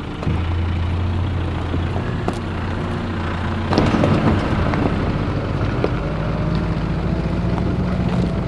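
Nissan Navara ute driving with its engine running steadily, with a brief louder burst of noise about four seconds in.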